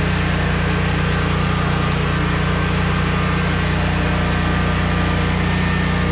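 Generac 15,000-watt portable generator engine running at a steady drone, under load while it powers a 5-ton central air conditioner.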